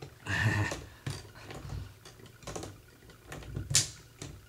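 Slip-joint pliers twisting a plastic wire nut tight onto a bundle of stripped copper wires: irregular clicks, creaks and a rasping scrape. The sharpest click comes near the end.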